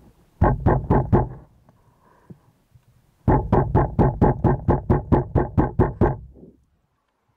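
Synthesizer music in quick, even pulses: a short run of four near the start, then a longer run of about five a second for some three seconds that stops abruptly.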